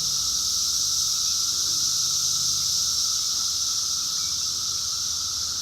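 A chorus of cicadas making a steady, unbroken high-pitched drone, with a fainter lower buzz beneath it.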